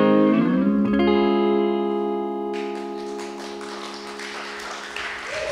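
The band's final guitar chord held and slowly fading as the song ends, then scattered applause starting about two and a half seconds in.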